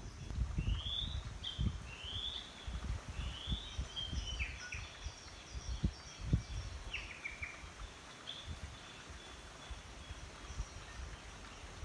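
Songbirds calling: a run of short upward-sweeping chirps and a few falling notes over the first eight seconds or so, thinning out toward the end. Underneath, a low rumble with scattered soft thumps.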